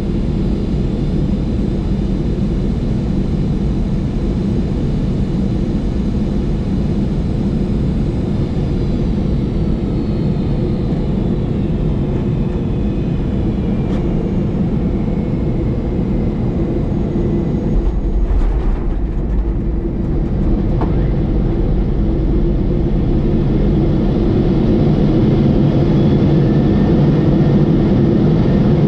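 Steady flight-deck noise of a Boeing 747-400 freighter: a constant rumble of engines and airflow, with a faint whine slowly falling in pitch through the middle and the noise growing a little louder near the end.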